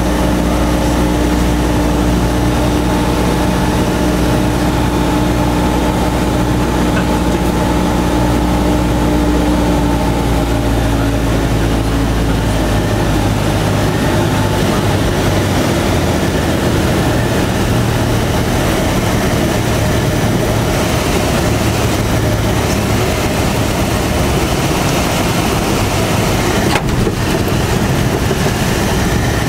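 Cockpit noise of a Cessna 172: the piston engine and propeller drone steadily on final approach, then about twelve seconds in the engine note fades as power comes back to idle over the runway threshold, leaving a steady rush of air and rolling noise through the landing rollout.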